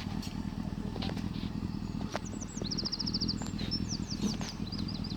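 Class 158 diesel multiple unit's diesel engines giving a steady low drone as the train creeps slowly toward the crossing. From about two seconds in, a small bird chirps repeatedly over it, with one quick trill.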